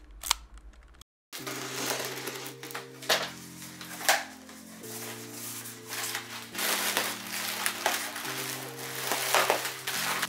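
A couple of sharp clicks at the very start, then instrumental background music begins about a second in: sustained chords changing every couple of seconds over a light beat.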